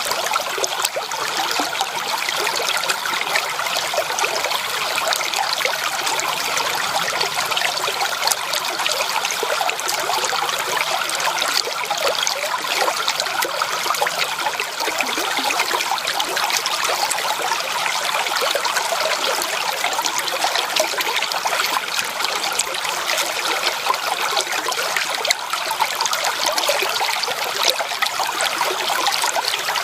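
Creek water trickling and babbling over stones, steady and continuous.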